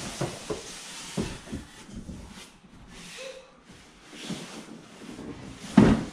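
Large cardboard TV box being slid up off the television and its foam packing: cardboard scraping and rustling with a string of soft knocks, and one louder thump near the end.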